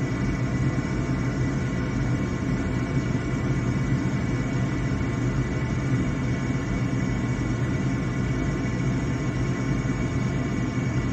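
Gas furnace's inducer (draft vent) motor running with a steady hum during the ignition sequence, while the igniter heats and before the burners light.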